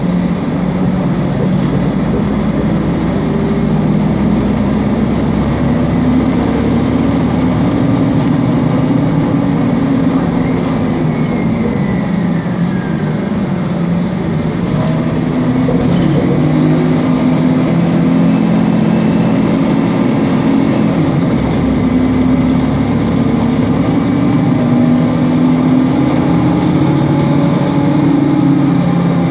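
Mercedes-Benz Conecto NGT city bus heard from inside while driving: its OM936G six-cylinder CNG engine and Voith DIWA automatic gearbox running, the engine note rising and falling as the bus speeds up and slows. A faint falling whine comes about halfway through.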